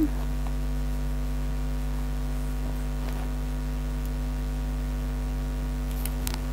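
Steady electrical mains hum, with a few faint light taps about six seconds in.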